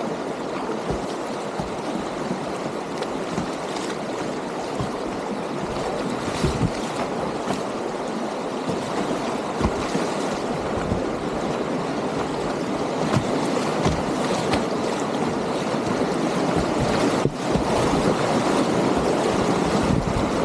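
Whitewater rapids rushing and splashing around a kayak at a flow of about 12 cubic metres per second, with many irregular low knocks. The rushing dips briefly about 17 seconds in and is a little louder afterwards.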